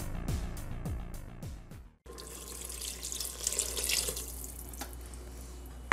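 A short jingle with a steady beat cuts off abruptly about two seconds in; then water pours from a glass measuring cup into the stainless steel inner pot of a Mealthy Multipot electric pressure cooker, splashing into the tomato sauce.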